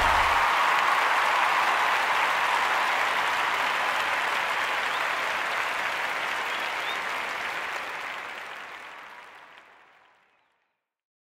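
Crowd applause, a steady wash of clapping that fades out about eight to ten seconds in.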